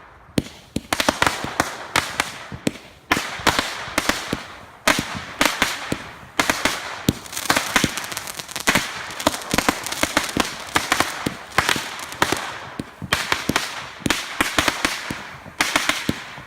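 Fireworks going off in rapid succession: a continuous barrage of sharp bangs and crackling pops, coming in volleys that swell and die away every second or two.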